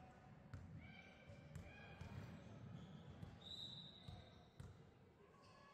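A basketball bouncing a few times on a hardwood gym floor, faint and irregular, under the low background murmur of the hall.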